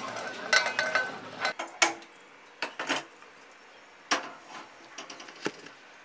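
Kitchen utensil clatter: a quick run of clicks and light metallic clinks in the first second, then a string of separate knocks, with a loud one about four seconds in as a black iron kadai is handled on the stove.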